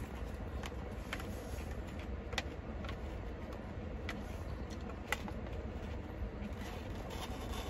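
Steady low hum in a car cabin, with scattered light clicks and crunches as someone eats a salad with a plastic spoon from a plastic container and chews the lettuce; two sharper clicks come about 2.5 and 5 seconds in.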